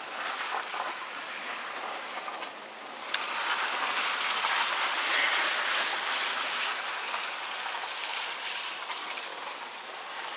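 Car tyres running through slush and puddles, a steady wet hiss heard from inside the car. It gets louder after a small click about three seconds in.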